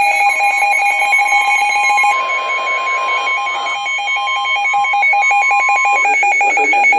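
Emergency weather alert tones: a fast-pulsing electronic alarm beep, joined by a steady tone of about 1 kHz that stops about a second before the end.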